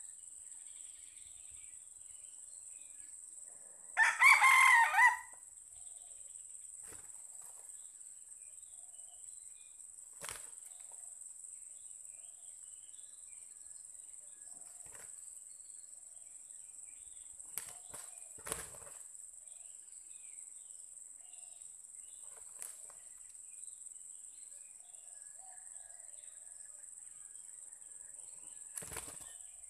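A red junglefowl rooster crows once, a short crow of about a second, about four seconds in. A steady high insect buzz carries on underneath, with a few faint knocks later on.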